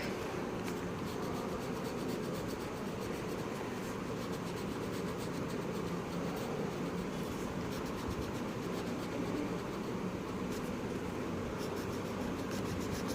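Coloured pencil scratching back and forth on paper as a leaf area is shaded in with steady strokes.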